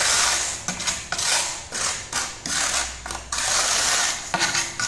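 Steel trowel scraping thinset mortar across the back of a ceramic tile in a run of short rasping strokes, about one or two a second. This is back-buttering: a thin coat under the tile, so that its curved centre beds fully in the mortar.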